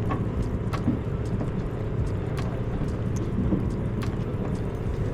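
A fishing boat's engine running steadily, a low drone with a faint hum, with scattered sharp clicks and knocks on deck.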